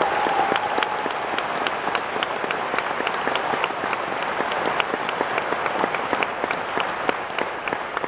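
Theatre audience applauding steadily at the end of a musical number, with the last held note of the music fading out about a second in.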